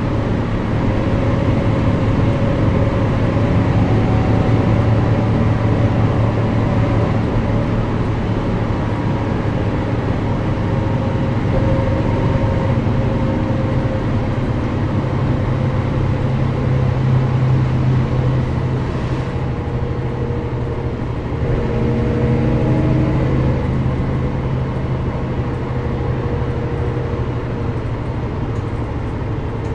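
Mercedes-Benz O405GN² articulated bus's diesel engine running under way, heard from inside the bus, its note rising and falling as the bus drives.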